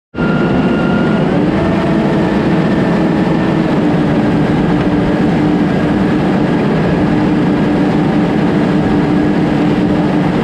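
Heavy machine's engine running steadily under load, with a high whine held over the engine note that shifts in pitch about a second in.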